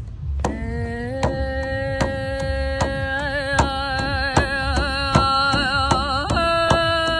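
A long sung note held on one vowel, wavering with vibrato in the middle and stepping up to a higher note near the end. Under it, a steady beat of sharp strikes about every 0.8 seconds with a low drum pulse.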